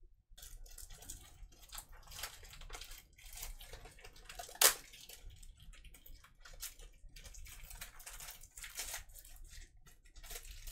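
Cellophane shrink wrap being peeled and torn off a CD jewel case: irregular crinkling and scratching of thin plastic, with one sharp snap a little under halfway through.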